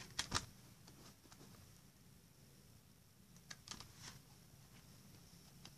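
Plastic CD jewel case being handled: a few short clicks and taps, the loudest pair about a third of a second in, a small cluster around three and a half to four seconds and one more near the end, over faint hiss.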